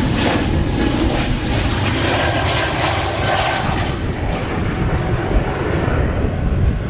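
Airbus A220-300's Pratt & Whitney PW1500G geared turbofans running at takeoff power as the airliner rotates and climbs away: a loud, steady jet noise with a heavy low rumble.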